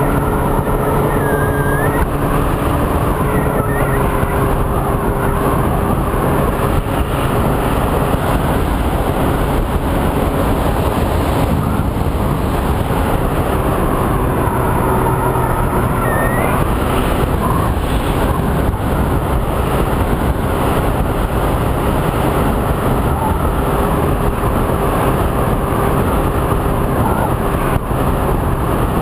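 Rushing wind on the camera of a Multiplex EasyStar RC foam plane in flight, with the hum of its electric pusher motor and propeller underneath, fading in and out with the throttle.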